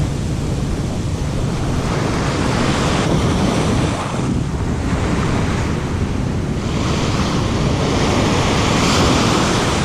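Ocean surf breaking and washing over the sand. It swells twice: once a couple of seconds in, and again building toward the end. Wind rumbles on the microphone underneath.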